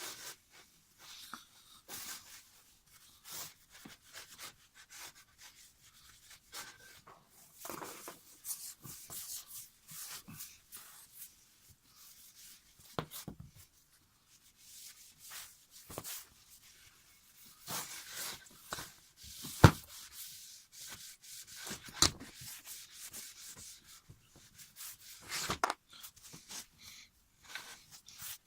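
Hand rubbing and scraping on a wooden bass drum hoop, in irregular strokes. A few sharp knocks stand out near the middle.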